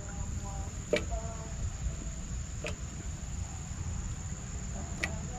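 Glutinous rice balls dropped by hand into a pot of hot water, three short plops about a second, two and a half and five seconds in. A steady high insect trill runs underneath.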